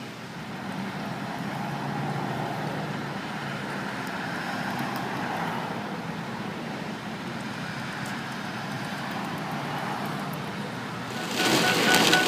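Steady traffic-like hiss of vehicles on the road. About eleven seconds in, a louder, denser hiss of heavy rain takes over.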